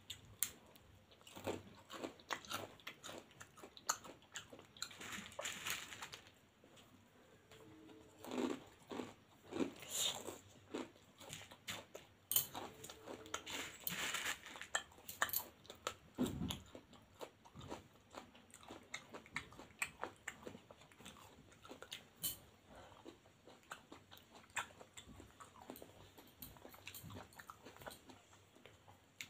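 Crunchy bhujia, a fried gram-flour noodle snack, being bitten and chewed: a steady run of crisp crunches and mouth sounds, coming thicker in short bouts every few seconds.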